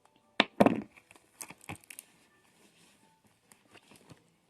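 Items being handled while rummaging in a handbag: a sharp click, then a brief crinkling rustle, followed by scattered light clicks and rustling.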